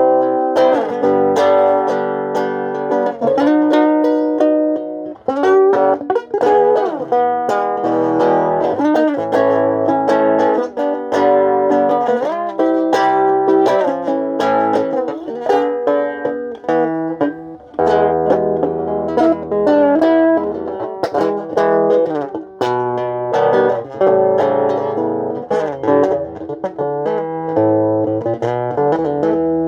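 Solo guitar playing an instrumental melody of picked single notes and chords, with some notes bent up and down in pitch.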